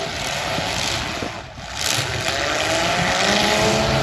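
V8 car engines revving hard in a demolition derby, their pitch climbing, with a brief drop in level about a second and a half in before revving up again.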